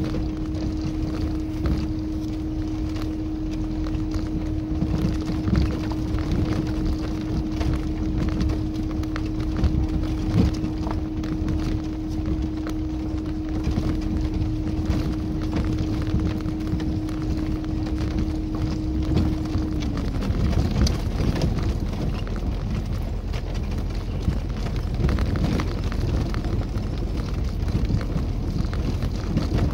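Tofaş Kartal driving slowly over a rough dirt track, heard from inside the cabin. The engine runs under a steady low rumble, and frequent knocks and rattles come from the body and suspension over the bumps. A steady whine drops in pitch and fades out about twenty seconds in.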